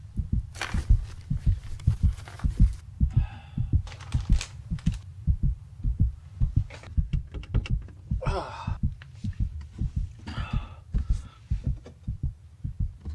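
Fast, low heartbeat-like thudding that runs on without a break, with a few short noisy bursts above it.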